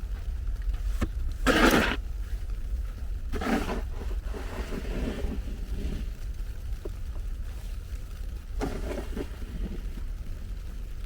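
Outdoor ambience in a snowstorm: a steady low wind rumble on the microphone, with three short louder swells of noise, the longest lasting about two and a half seconds.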